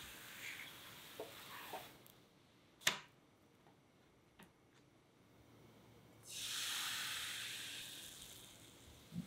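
Chocolate crepe cooking in a hot frying pan: a soft sizzle with a few small scrapes as the crepe is lifted out, then a single sharp tap. About six seconds in, fresh batter hits the hot pan and sizzles loudly, fading away over the next two seconds.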